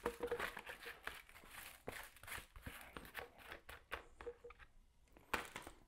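Light, irregular taps, clicks and rustles of small items being handled on a kitchen counter, with a brief lull about four and a half seconds in and a few sharper taps just after it.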